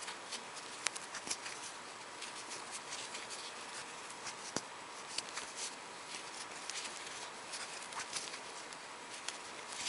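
Faint, irregular small clicks and rustles of a metal crochet hook working yarn through single crochet stitches, over a steady background hiss.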